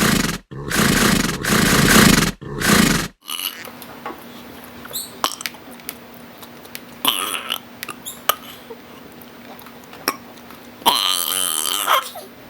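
Boys burping loudly: a run of four long burps in the first three seconds, then scattered clicks, and another long burp near the end.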